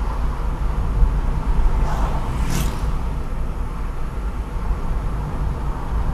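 Wind buffeting the microphone and tyre and road noise from a moving Rover 25 GTi, with a heavy low rumble. A brief high hiss comes about two and a half seconds in.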